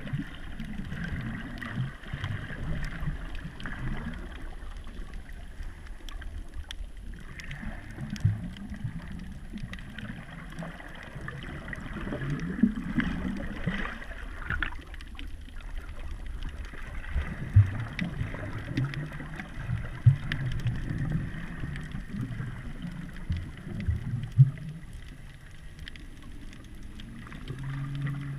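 Muffled underwater ambience: water moving and gurgling around a submerged camera, with an irregular low rumble and a few sharp knocks.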